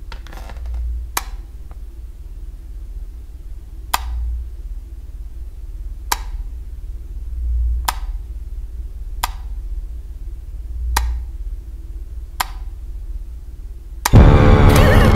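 A wall rocker light switch clicked off and on, seven sharp clicks a second and a half to two seconds apart, over a low rumble that swells every few seconds. Near the end a sudden loud burst of horror-film music cuts in.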